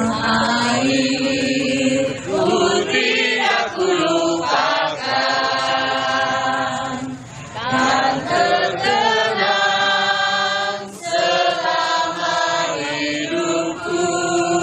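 A woman singing into a microphone, leading a crowd of voices singing along together, in long held notes with short breaks between phrases.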